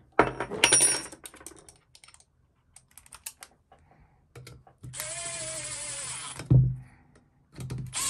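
Milwaukee 12 V cordless impact driver running for about a second and a half, a steady whine sagging slightly in pitch as it runs a muffler screw in on a small two-stroke engine. Clicks of tools being handled come before it, and a thump right after it.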